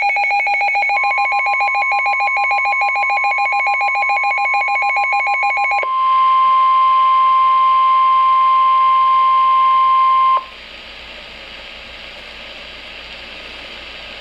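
Weather-radio alert tones. A fast-pulsing electronic alarm sounds for the first six seconds or so, over a steady single-pitch warning tone that starts about a second in and cuts off sharply near ten seconds. Quieter radio hiss follows.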